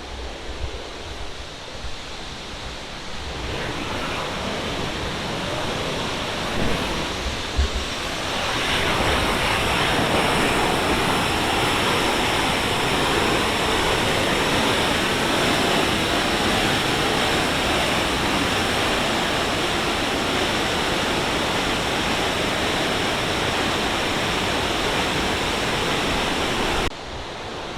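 Sunwapta Falls: the steady rushing roar of a large waterfall, growing louder over the first several seconds and then holding steady, with a sudden drop near the end.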